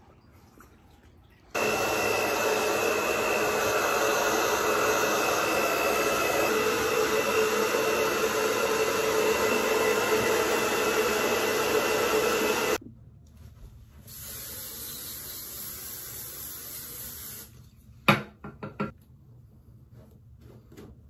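Handheld hair dryer running for about eleven seconds, a steady blowing with a high whine over it, then cut off. A few seconds later a quieter steady blowing runs for about three seconds, followed by a few sharp knocks.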